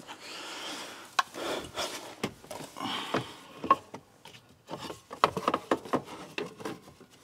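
Cardboard rustling and scraping in the dash opening, with light clicks and knocks as the Haltech Elite 2500 ECU's plastic case is pressed against the cardboard template and shifted around for a test fit.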